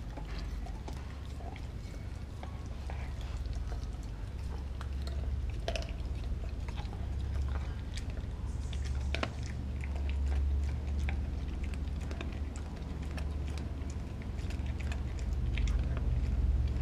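A dog gnawing a frozen raw pig's foot: irregular sharp cracks and clicks of teeth scraping and biting into frozen skin and bone, over a steady low rumble.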